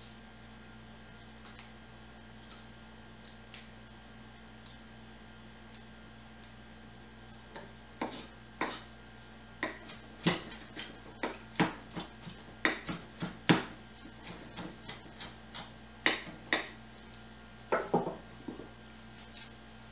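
Kitchen knife chopping fresh mint on a wooden cutting board: a few light taps at first, then from about eight seconds in a run of sharp, irregular knocks, about two a second, until near the end.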